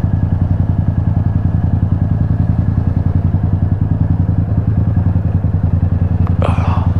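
Motorcycle engine running at low, steady revs while the bike rolls slowly, its exhaust pulses quick and even with no revving.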